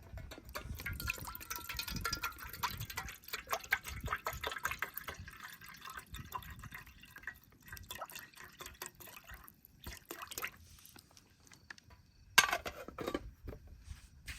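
Liquid being poured into a container, with dripping and small clinks and knocks of cookware as the ramen is prepared; a single sharp knock about twelve seconds in is the loudest sound.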